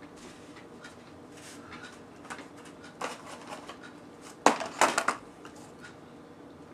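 Cardboard slider boxes being handled, with a cluster of sharp crackles about four and a half seconds in as the empty boxes are lifted and moved. A few quieter clicks come before it.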